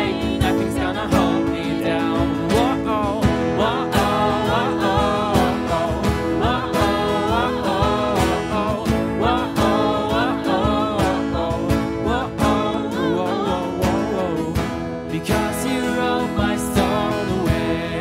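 A worship song played live: a strummed acoustic guitar with voices singing the melody.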